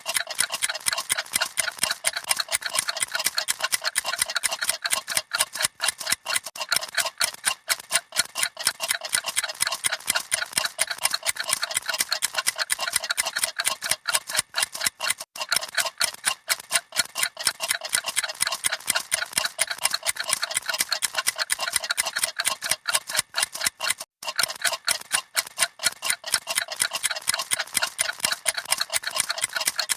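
Several clocks ticking rapidly together, their ticks overlapping out of step into a dense, continuous clicking.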